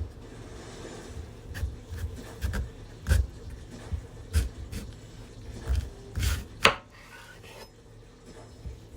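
Kitchen prep sounds: irregular knocks and taps of a knife and utensils on a wooden cutting board, with a sharper knock about two-thirds of the way in, then fewer, quieter taps.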